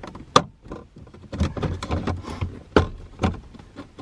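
Plastic centre-console trim around the gear stick of a 2008 Ford Mondeo being pulled up by hand, its retaining clips snapping loose with a string of sharp clicks and plastic knocks.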